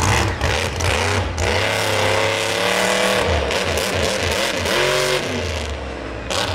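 Monster truck engine being revved up and down several times, loud.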